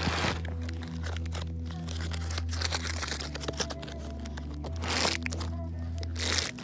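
Plastic CD cases clacking and rustling as a hand flips through them in a rack, over music with a deep bassline. The loudest clatters come right at the start and about five and six seconds in.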